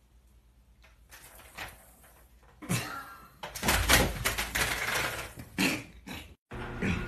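Sharp thuds and a clatter as a cat leaps from a shelf and lands badly, knocking things about, loudest about four seconds in, with another knock a little later.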